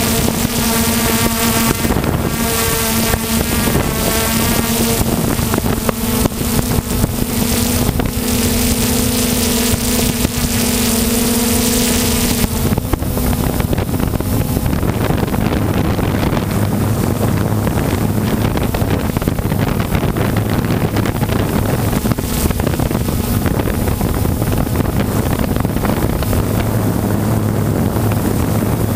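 3DR Solo quadcopter's motors and propellers humming steadily, with wind on the microphone. About halfway through, the steady pitched hum gives way to a lower, rougher drone.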